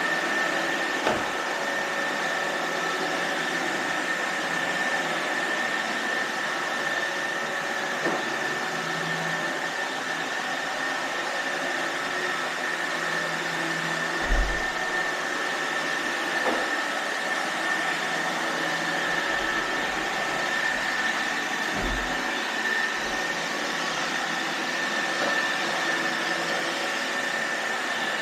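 iRobot Roomba robot vacuums running steadily, with a constant high whine over the motor and brush noise. A few short knocks come at irregular intervals.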